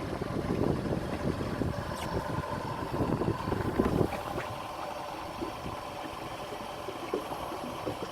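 Yamaha F150 four-stroke outboard idling steadily, with wind gusting on the microphone.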